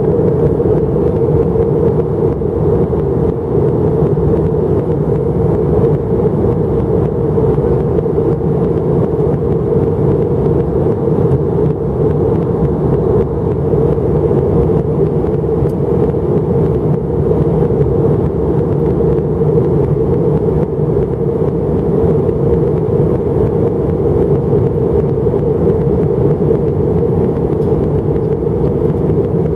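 Airbus A319 cabin noise in flight, heard from a window seat over the wing: the steady drone of the jet engines and rushing air, even and unbroken.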